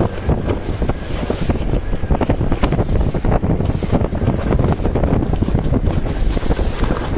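Strong gusty wind buffeting the microphone, rumbling and rising and falling in gusts, over choppy water around the boat. A storm wind of about force 6 by the speaker's estimate.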